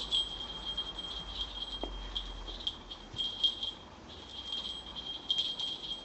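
A steady high-pitched electronic whine with crackling clicks, broken by two short gaps.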